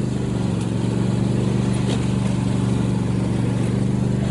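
An engine running steadily at an even pitch, growing louder just before and then holding level.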